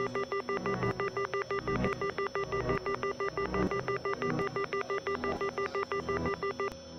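Electronic ringing signal pulsing rapidly on and off, about five times a second, over a low rumble. It cuts off suddenly near the end.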